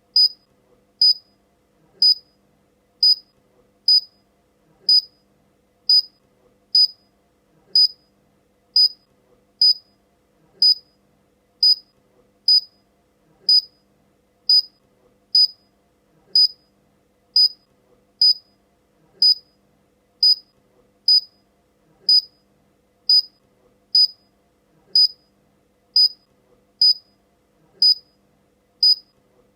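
Electronic beeper sounding short, high-pitched beeps, about one a second, in an even unbroken rhythm.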